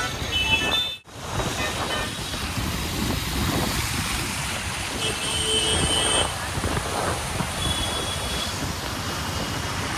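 Scooter riding through a flooded street: a steady rush of water churned under the tyres, with wind on the microphone and the hum of traffic. The sound drops out briefly about a second in.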